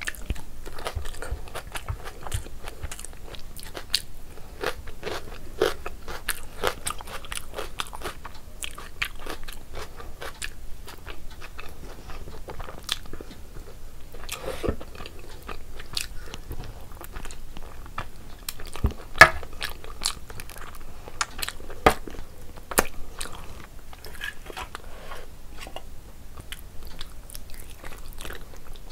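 Close-miked eating: a person biting and chewing curry-soaked mutton and rice, with many small crunches and wet clicks at an irregular pace. A couple of sharper clicks stand out about two-thirds of the way through.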